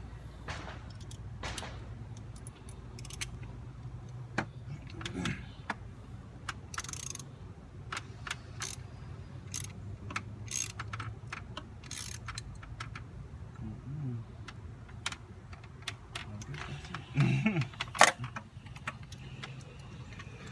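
Ratchet and socket tightening the thermostat housing bolts on a Mustang V6 engine: irregular metallic clicks and clinks of the hand tools, the loudest about eighteen seconds in, over a low steady hum.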